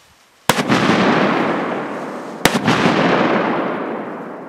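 Two Funke Trueno Nr4 firecrackers exploding, two loud bangs about two seconds apart, each followed by a long rumble that fades away.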